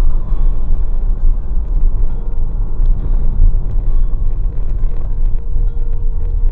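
Low, steady rumble of a car driving along an asphalt road, heard from inside the cabin: engine and tyre road noise.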